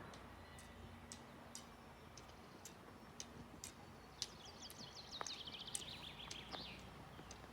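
A songbird sings one phrase of rapid high notes that fall in pitch, lasting about two and a half seconds, starting a little past the middle. Under it are faint, regular ticks about twice a second.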